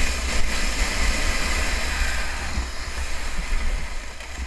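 Plastic sled sliding fast over icy snow: a steady scraping hiss, with wind noise rumbling on the microphone. It grows quieter near the end.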